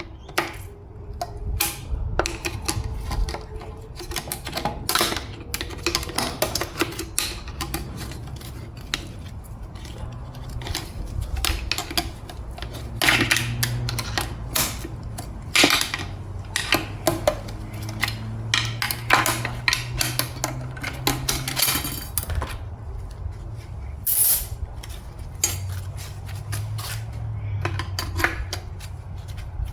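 Steel automatic-transmission internals clinking and clattering as they are handled, pried out and set down during a teardown. The sound is a busy, irregular run of sharp metal clicks and knocks, denser in the middle.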